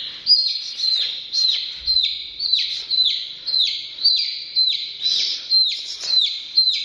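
A domestic chick peeping loudly, held in the hand: a steady run of distress peeps, each a quick falling note, about two a second.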